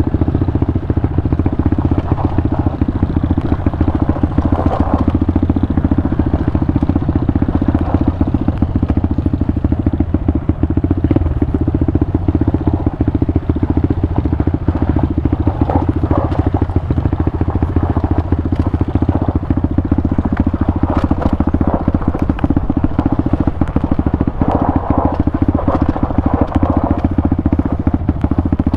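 Pitster Pro 190 FSE pit bike's single-cylinder engine running at a fairly steady pitch while ridden, with scattered short clicks and clatter over it.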